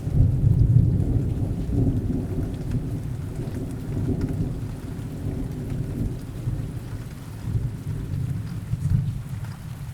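Rolling thunder rumbling over steady rain, loudest about a second in and dying away toward the end.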